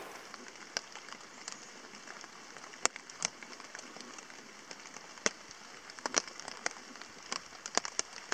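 Raindrops tapping on a hammock tarp overhead: scattered single taps that come thicker from about six seconds in.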